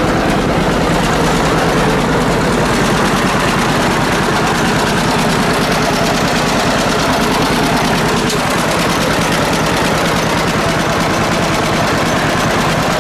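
Old John Deere tractor engine running steadily with a fast, even firing beat.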